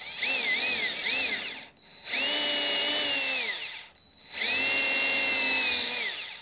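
DeWalt cordless drill pre-drilling pilot holes in old wood in three runs. In the first run the motor speed dips and rises three times; in the second and third it holds steady, then winds down as the trigger is let go.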